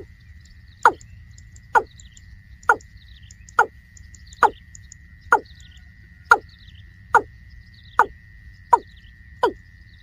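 Watercock calling: a short note falling in pitch, repeated a little faster than once a second, about a dozen times. A faint steady high tone runs behind the calls.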